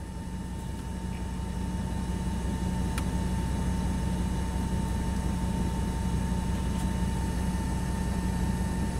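Steady low hum of a vehicle engine running, with a thin steady whine above it and a single click about three seconds in.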